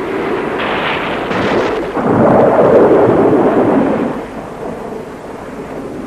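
Storm sound effect: thunder rumbling, with a couple of short cracks early and a loud rolling peak in the middle that dies away.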